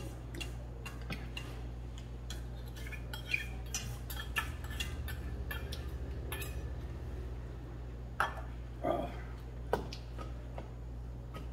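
A metal spoon and chopsticks clinking and scraping against stainless-steel bowls as rice is scooped from a small steel bowl and stirred into a large steel bowl. The light clicks run throughout, with a few sharper knocks near the end.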